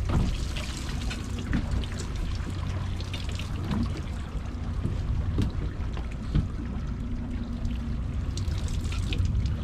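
Water splashing and trickling along a boat's hull over the low, steady hum of twin Mercury outboard motors idling in gear for slow trolling, with a few brief knocks.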